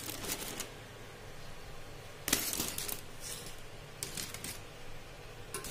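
Aluminium foil crinkling as it is peeled back from a steamed pot of biryani, with the clink of the aluminium pot lid being lifted off, in about four short, sharp bursts.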